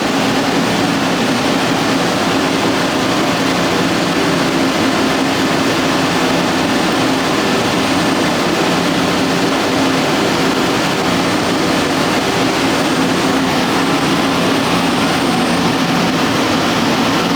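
Boiler room machinery running steadily: an even, constant noise with a low hum beneath it that does not change.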